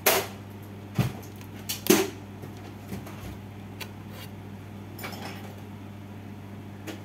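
A few sharp knocks and clicks, then fainter ticks, as a circuit board and multimeter probes are handled and set down on a workbench, over a steady low hum.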